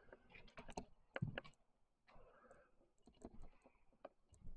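Near silence with faint scattered clicks and light knocks, bunched in the first second and a half, with a heavier knock about a second in.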